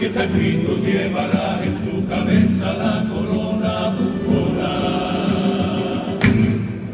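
Carnival comparsa's male chorus singing together on stage. A loud accent comes a little after six seconds in, then the sound falls away.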